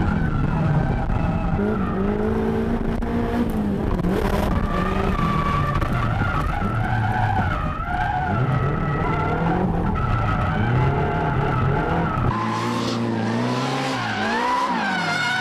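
Turbocharged Nissan 180SX drift car's engine revving up and down through a drift, its pitch rising and falling again and again, with the tyres squealing as the car slides.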